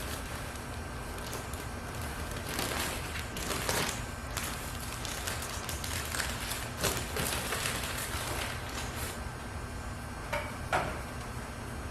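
Workshop handling noise: irregular rustling and scraping with a few light knocks, over a steady low hum.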